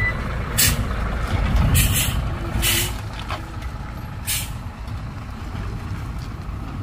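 Heavy diesel truck engine running low, with about four short, sharp hisses of air from its air brakes; the engine sound eases off about halfway through.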